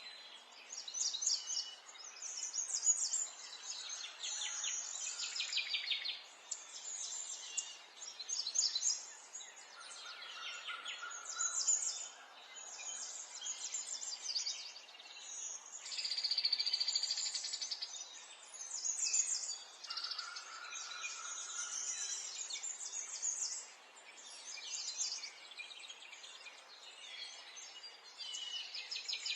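Several small songbirds singing and chirping over one another: quick trills and repeated high notes, one long rapid trill about halfway through, over a faint steady background hiss.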